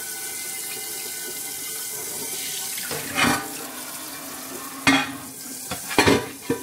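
Tap water running steadily into a kitchen sink, with a few short louder sounds on top about three seconds in, near five seconds and around six seconds.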